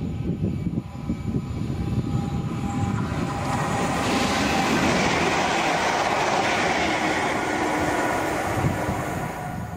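London Midland Class 350 Desiro electric multiple unit passing through at speed: a steady electric whine as it approaches, then the rushing noise of its passing swells to its loudest about halfway through and fades near the end as it goes by.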